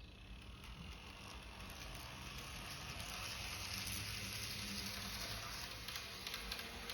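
N-gauge TOMIX KiHa 120 railcar model running on track: a steady rushing whir of the small motor and wheels with faint ticks, getting louder over the first three seconds and then holding.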